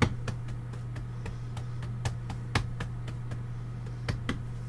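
Irregular light clicks and taps of kitchen handling over a steady low hum.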